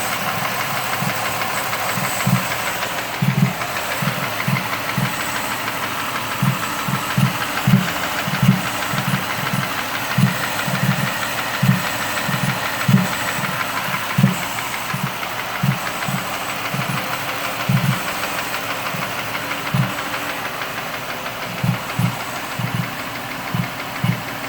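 2005 Mercury Mariner's V6 idling with irregular low thumps of varying loudness, a few a second at uneven spacing. These are the slight top-end knock and the random popping in the intake that the owner is chasing, along with lean codes P0171 and P0174 on both banks.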